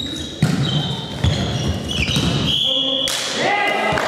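Volleyball rally on an indoor court: the ball is struck with sharp smacks about half a second and just over a second in, and sneakers squeak on the hall floor. Near the end, players' shouts break out as the rally ends.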